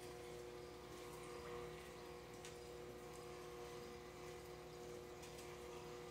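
Aquarium air stone bubbling faintly over a steady electrical hum from the tank's equipment, with a few light ticks.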